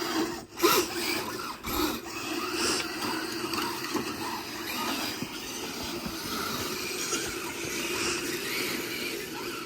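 Radio-controlled Kyosho Blizzard tracked snow vehicle driving over hard, crusty snow: a steady electric motor and gearbox whine with the tracks grinding over the surface, and a few sharp knocks in the first two seconds.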